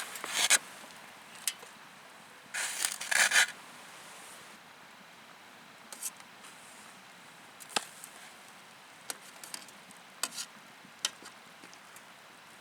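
Handling sounds: a short scrape at the start and a longer double scrape about three seconds in, then scattered light clicks and taps.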